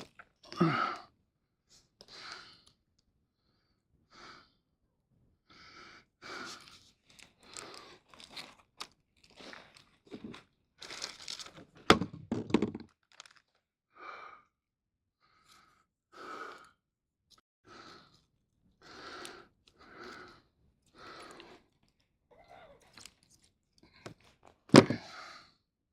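Handling noises: a string of short rustles and scrapes about once a second, with a louder knock about twelve seconds in and another near the end.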